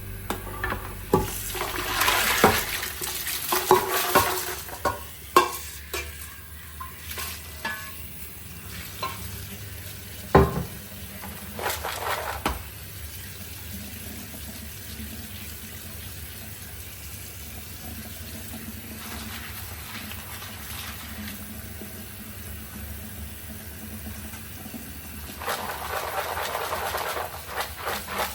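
Clinks and knocks of household items being handled and set down over a low steady hum, with stretches of soft hissing noise.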